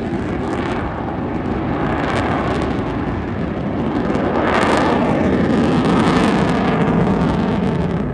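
A fixed-wing aircraft flying past, its engine noise loud throughout, swelling to a peak around the middle and easing off near the end.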